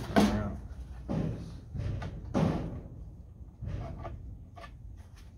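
A run of hard clunks and knocks, about six or seven over four seconds, the loudest just after the start and about two and a half seconds in, dying away toward the end.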